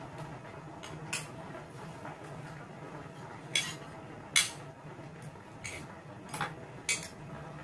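Metal spoon and fork clinking and scraping on a ceramic plate while eating: about six sharp clinks, the loudest two about three and a half and four and a half seconds in, over a low steady hum.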